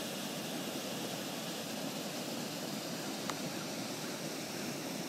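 Steady rushing of floodwater, an even, unbroken noise.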